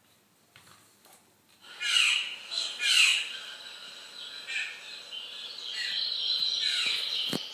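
Birds chirping on a television wildlife programme: two loud falling calls about a second apart, then a run of higher calls and twittering. A single thump near the end.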